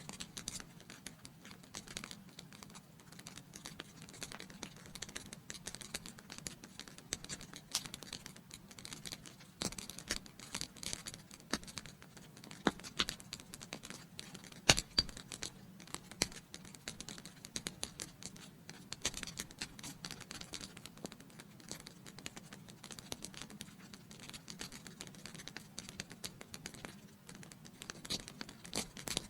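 Wood fire in a fireplace crackling, with irregular small pops and snaps over a soft hiss; one louder pop about halfway through.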